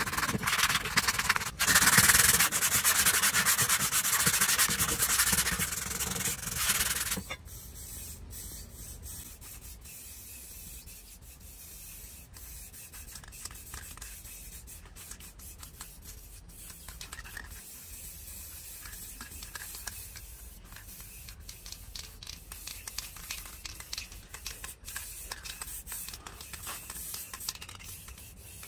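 Sandpaper rubbed by hand over a rusty steel amplifier part in quick back-and-forth strokes, taking off the rust. The scratching is loud and stops suddenly about seven seconds in, leaving only faint scratchy noise.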